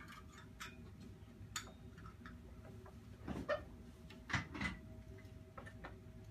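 Small steel bolts clicking and clinking as they are handled and pushed through a bicycle's rear-wheel sprocket and spokes, with two louder clatters of metal about three and a half and four and a half seconds in.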